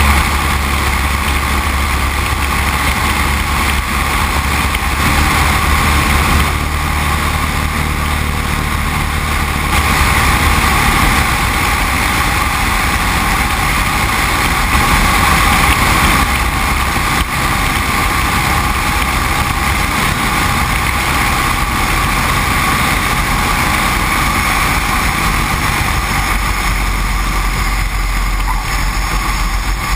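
Great Lakes biplane's engine and propeller running, with loud wind rush over the open airframe. The engine note drops partway through as power is pulled back for the descent and landing.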